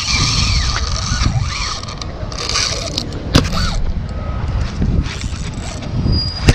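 Spinning reel being cranked to bring in a freshly hooked fish, with a few sharp clicks about three seconds in, over a steady low rumble.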